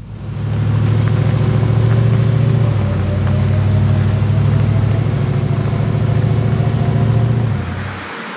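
A Jeep's engine running steadily as the vehicle drives along a dirt trail. Near the end the engine sound drops away and the steady rush of a waterfall takes over.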